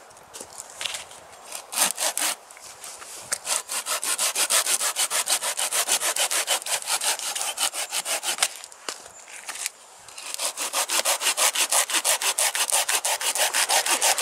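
Hand saw cutting through wood in quick, even back-and-forth strokes, about four a second, pausing briefly near the start and again a little past the middle.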